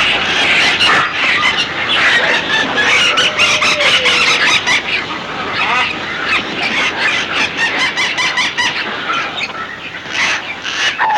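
A large flock of birds calling all at once in a dense, continuous din of overlapping squawks and cries, with many short sharp strokes mixed in. This is a staged sound-effects recording of a swarming flock.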